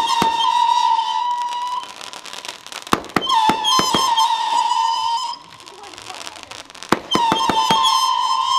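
Whistling fireworks going off in three bouts: each starts with a few sharp pops and then gives a steady high whistle for about two seconds. The first is already going when the sound starts, the next comes about three seconds in, and the last near the end.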